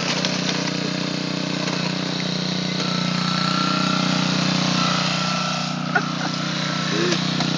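Honda self-propelled push lawnmower's small four-stroke engine running steadily under way, with a small click about six seconds in.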